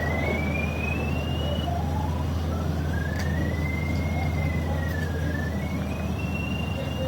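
A distant siren wailing, one thin high tone slowly rising and falling, over a steady low mechanical hum.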